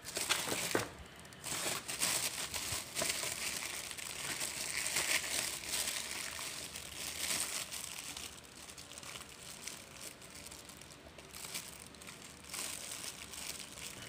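Clear plastic bag wrapping crinkling and rustling as hands handle a new siren horn and pull its module and wires out of the bag, in irregular crackles that are busiest in the first half and fainter later.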